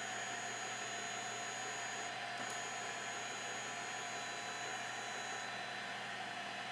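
Steady electrical hum and hiss, with a faint high-pitched whine that breaks off briefly about two seconds in and stops about five and a half seconds in.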